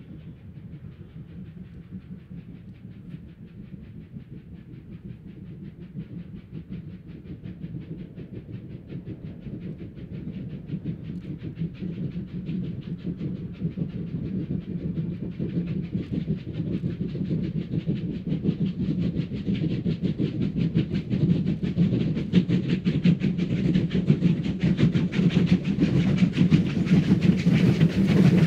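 Three Victorian Railways steam locomotives, D3 639, A2 986 and R 761, triple-heading a passenger train. Their exhaust beats overlap in a fast, uneven chuffing that grows steadily louder as the train approaches.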